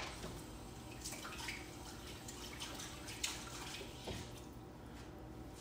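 Faint, scattered small ticks and clicks of kitchen handling against low room noise, the sharpest about three seconds in.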